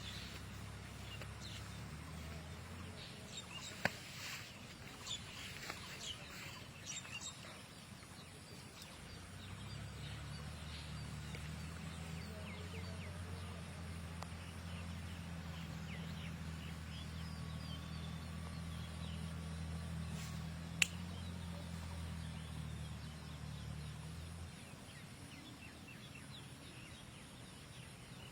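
Faint bird calls over a low, steady hum that drops out about three seconds in, comes back for much of the middle and fades a few seconds before the end, with a few sharp clicks.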